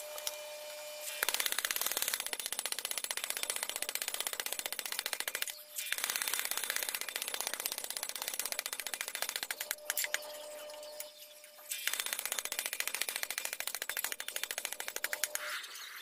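Electric power hammer pounding a red-hot steel cleaver blank with a rapid, rattling run of blows, in three bursts with short pauses between them.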